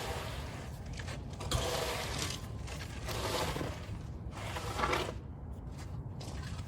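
Screed board scraping across wet concrete in about four strokes, over a steady low rumble.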